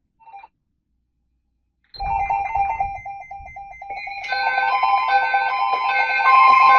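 Electronic alert tones: a steady pair of pitches starts about two seconds in, and about two seconds later layered tones with a short beep repeating a little under once a second join them.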